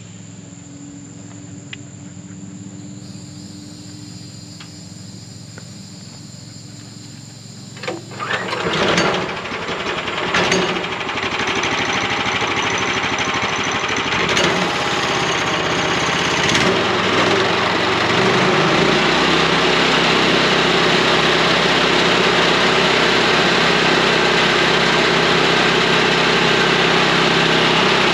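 Small gas engine of a portable bandsaw sawmill idling at first, then revved up sharply about 8 s in and running loudly at high speed, getting louder again around 18 s.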